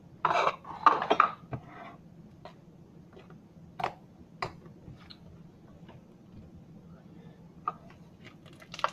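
Fluffy slime being stretched and pressed by hand: two short louder noisy sounds in the first second and a half, then a few scattered small clicks and pops.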